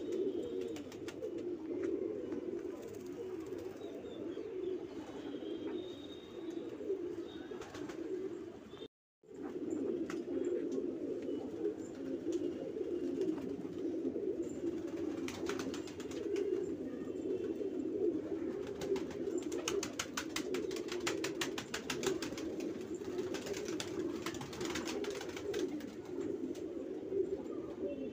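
Flock of Banarasi domestic pigeons cooing continuously, many birds overlapping into a steady low chorus, with a brief break about nine seconds in.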